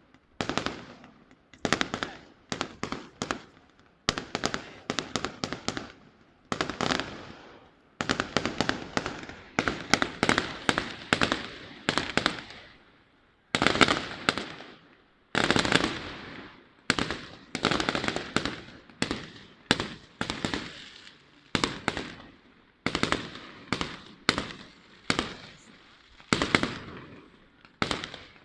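Fireworks display: rapid volleys of sharp bangs and firecracker-like reports, several a second, coming in clusters that each die away, with short gaps between them.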